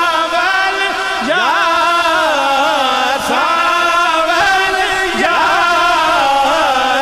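A male voice singing a naat, a Punjabi-Urdu devotional song, in long held phrases with wavering, ornamented pitch and a few quick downward slides.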